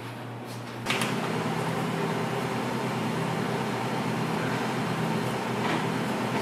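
A small electric machine switches on with a click about a second in and then runs with a steady hum, with a couple of light knocks later on.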